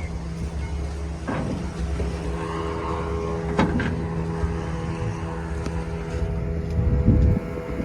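Fishing boat's engine running with a steady hum, with a couple of sharp knocks and a louder low thump near the end.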